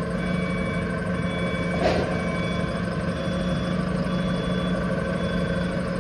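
Kaystar KDJY50 five-ton rough-terrain forklift's engine running steadily as the machine moves slowly, with a regular high electronic beeping repeating over the engine.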